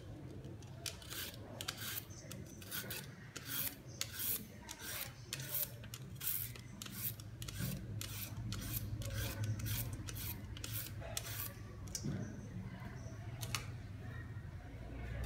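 Repeated hand-worked scraping strokes of food preparation, about two to three a second, thinning out to a few strokes about halfway through.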